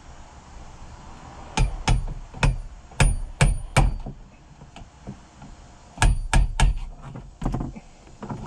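Sharp metal-on-metal strikes of a screwdriver being hit against the fuel pump to turn it and break it free from the tank, in two runs of about six blows.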